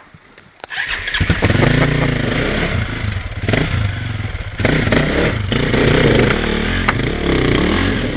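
KTM 525 EXC's single-cylinder four-stroke engine starting up about a second in, then revving up and down in bursts as the enduro bike is ridden over loose river rocks, with a few sharp knocks.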